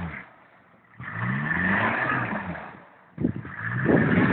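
An off-road 4x4's engine revving in bursts, its pitch rising, as it is driven through deep muddy water. It drops away almost to nothing twice, then comes back suddenly about three seconds in with a rough clatter.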